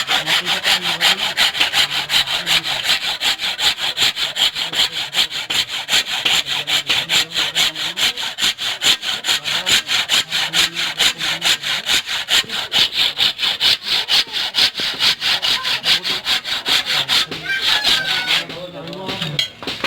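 A hand tool rasping back and forth in rapid, even strokes on a workpiece during knife making, stopping about two seconds before the end.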